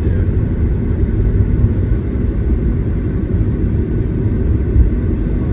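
Steady low rumble of tyre and road noise heard inside the cabin of a moving Tesla electric car, with no engine sound.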